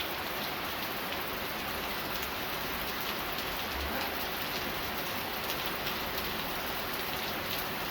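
Steady rain falling, a constant hiss of rain on surfaces with faint scattered drop ticks.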